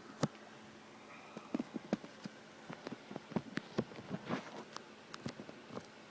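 Irregular light metallic clicks and knocks, a couple of dozen in a few seconds: a brass padlock being handled and clamped into a small bench vise.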